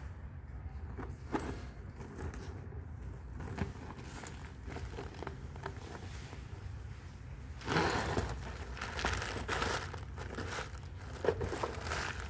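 A matte-leather handbag being handled: the bag's material rustling and its gold-plated metal chain strap clinking, with a louder stretch of rustling and clicks from about eight seconds in, over a steady low hum.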